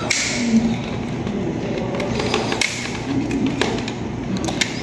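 Hands handling the plastic casing of a fibre modem: a few scattered sharp clicks and taps as the cable is looped around its back.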